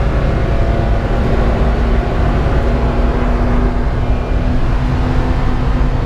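Car engine pulling hard under load at speed, heard from inside the car, its note climbing slowly over a constant rush of road and wind noise.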